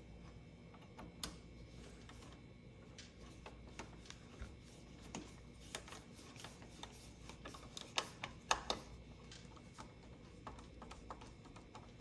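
Faint, irregular small clicks of a hand screwdriver turning a small machine screw into a metal door-lock faceplate, with a few sharper clicks about a second in and a cluster around eight seconds in.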